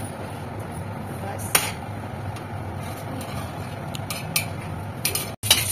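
Metal spatula clicking and scraping against an iron tawa as flatbreads are turned, a few sharp clicks over the steady rush of the gas burner; the sound drops out briefly near the end.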